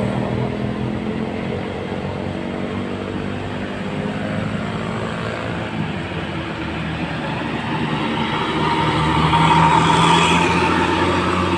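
Bus engine running steadily, swelling louder for a couple of seconds near the end.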